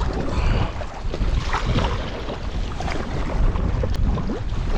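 Strong wind rumbling on the microphone over choppy water, with splashes of paddle strokes as a paddleboarder tows another paddler against the current.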